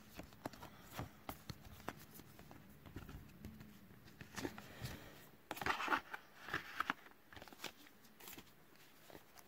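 Faint handling of photo postcards and album packaging: paper and card sliding and rustling with light taps, and a brief louder rustle about six seconds in.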